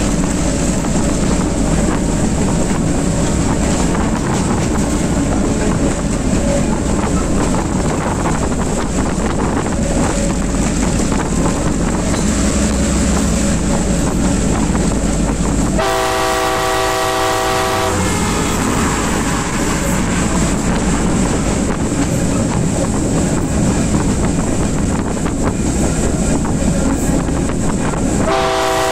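Sri Lanka Railways Class M2c diesel locomotive 626 running at speed, a steady mix of engine and rail noise, with one two-second blast of its multi-tone horn a little past halfway and another blast starting just before the end.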